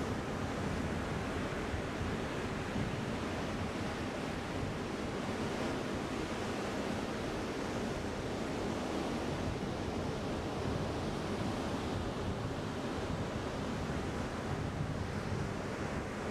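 Ocean surf breaking and washing on the beach, a steady wash of noise that swells and eases gently, with some wind on the microphone.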